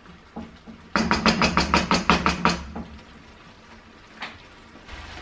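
Rapid run of about a dozen sharp knocks lasting about a second and a half, then one more knock near the end.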